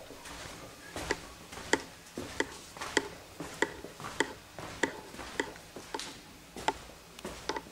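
Footsteps of one person walking at a steady pace along a corridor, a sharp click about one and a half times a second.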